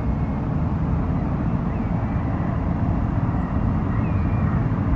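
Airliner jet engine noise, a steady low rumble.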